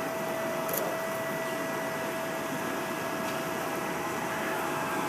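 Steady mechanical hum and hiss with a constant mid-pitched whine.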